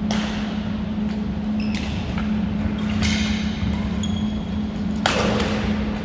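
Badminton rally: several sharp racket-on-shuttlecock hits, the loudest about five seconds in, with short high squeaks of sneakers on the gym floor, over a steady low hum.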